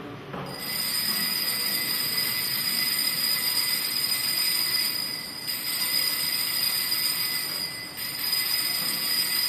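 Altar bells ringing steadily at the elevation of the consecrated host, in three long peals with short breaks about five and eight seconds in.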